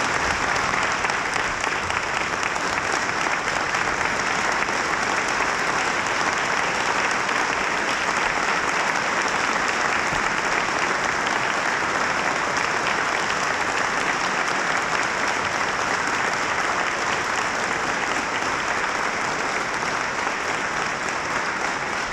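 A large audience applauding steadily and at length, the clapping easing off slightly near the end.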